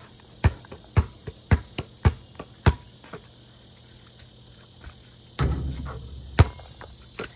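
Basketball bouncing on pavement: a run of dribbles about two a second, then after a pause a rattling thud as the shot hits the hoop and backboard, and the ball bounces again twice. Crickets chirr steadily throughout.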